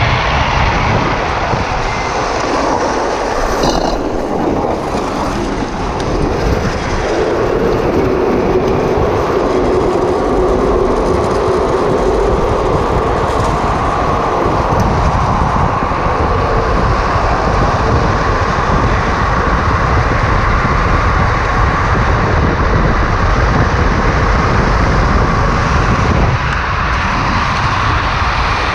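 Drift trikes rolling and sliding fast down an asphalt mountain road: a continuous rumble and hiss of wheels on tarmac mixed with rushing wind, with a droning note that shifts higher about halfway through.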